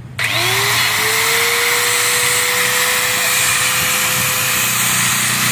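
Bosch GWS 060 670-watt angle grinder switched on and spinning up within a fraction of a second to a steady high whine, running with no load as a first test run of the new tool. It begins to wind down at the very end.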